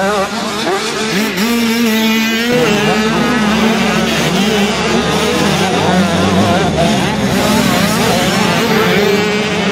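Several motocross bikes' engines revving hard as they race past, overlapping and rising and falling in pitch as the riders accelerate and ease off.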